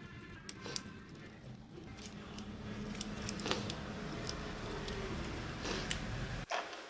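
Small electric fan motor running with a steady low hum, with scattered light clicks of handling, stopping suddenly near the end.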